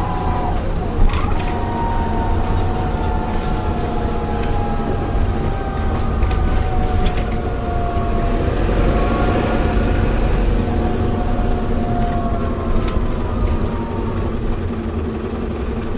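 Optare Solo bus's Allison automatic gearbox whining as the bus slows down, several whining tones falling slowly in pitch over a steady low rumble. A single knock about a second in.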